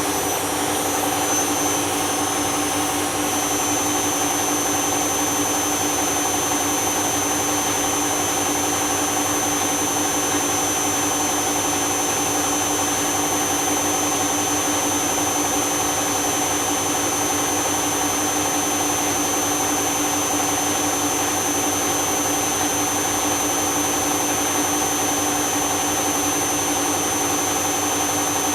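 Candy washing machine spinning its empty drum at high speed: a steady motor whine with a high-pitched tone over a rushing noise.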